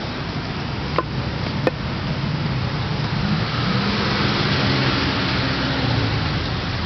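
Street traffic: the steady rush of cars going by, swelling as a vehicle's engine hum passes in the second half. Two sharp clicks come about a second in.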